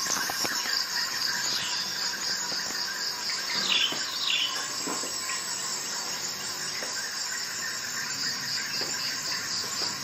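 Steady high insect-like chirring throughout, with a few faint clicks and two short falling squeaks about four seconds in.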